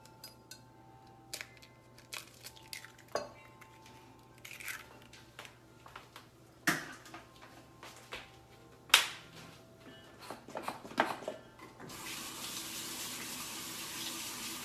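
Dishes and utensils clinking and knocking against a mixing bowl in a few separate sharp hits, the loudest about nine seconds in; about twelve seconds in a kitchen tap starts running steadily.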